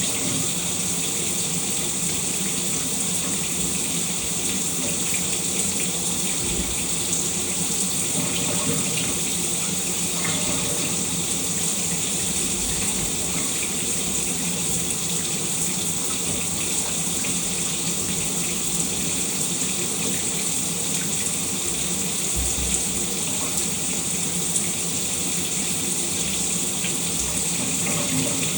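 Shower spray running steadily, water hissing and splashing without a break.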